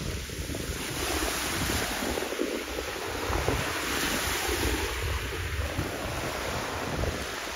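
Wind buffeting the microphone in gusts over a steady wash of small waves on the harbour water.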